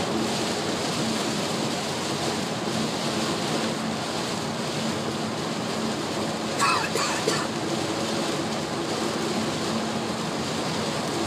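Heavy rain on a moving Honda car, a steady rushing hiss of rain and tyre noise heard from inside the cabin, over a low engine hum.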